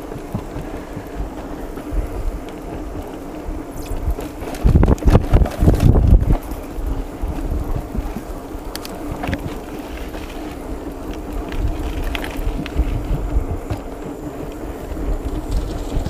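Wind buffeting the microphone of a mountain bike's handlebar camera while riding, mixed with the rattle and clicks of the bike and its tyres over a rough dirt path. The buffeting is heaviest for about a second and a half, around five seconds in.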